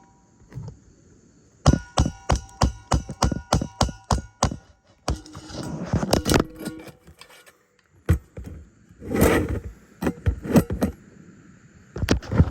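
Hammer driving nails while a replacement roof shingle is fastened: a quick run of about a dozen ringing blows, about four a second, followed by rustling and scraping and a few more knocks near the end.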